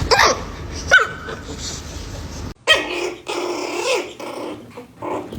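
A dog barking and growling: two sharp barks that drop in pitch, about a second apart, then after a brief break a longer drawn-out growl.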